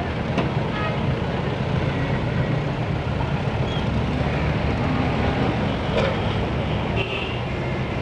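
Busy street traffic: a steady rumble of engines and road noise, with a short high horn toot about seven seconds in.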